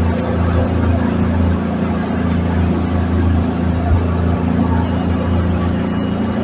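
Boat engine running steadily underway, a loud even drone.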